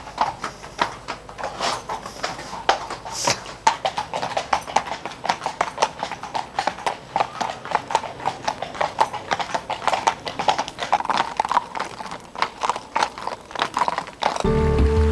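Several horses walking on a hard paved street, their hooves clip-clopping in an uneven, overlapping rhythm. Background music comes in near the end.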